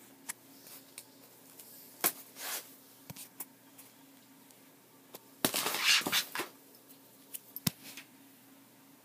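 Handling of a trading-card binder with plastic pocket pages: scattered sharp clicks and taps, with a longer crinkling rustle of the plastic pages a little past halfway. A faint steady hum runs underneath.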